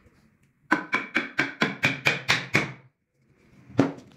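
A quick run of about nine sharp knocks on wood, four or five a second, each with a short ringing tone. About a second later comes one more, single knock.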